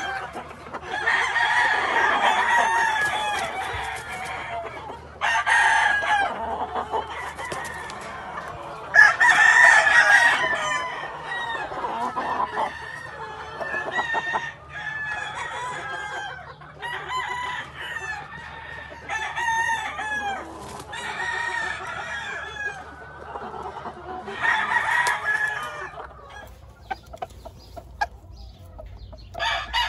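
Game roosters crowing again and again, several loud crows overlapping, with clucking and shorter calls between the crows.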